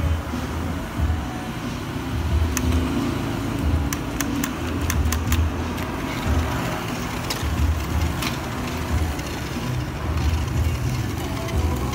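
Electric drive motors and plastic gearboxes of a 1:18 JBS TR10025 RC climbing truck running as it climbs over a box, with scattered sharp clicks of plastic parts knocking.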